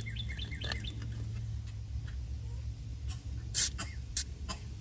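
Aerosol can of WD-40 spraying through its straw in short hissing spurts: a loud one about three and a half seconds in and a briefer one soon after. The penetrating oil is being worked under a distributor rotor seized with rust.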